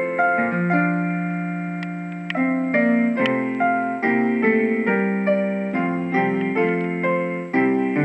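A MIDI tune in a piano voice from the OLED pushbutton demo box: a melody of struck notes over lower chord notes, each fading after it is played.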